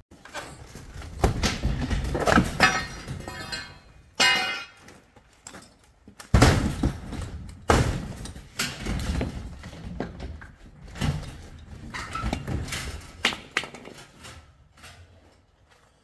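Metal sectional garage door panels being forced and bent with a firefighter's hook: repeated bangs, crumpling and rattling of the panels, with a sharp ringing clang about four seconds in. The noise dies away near the end.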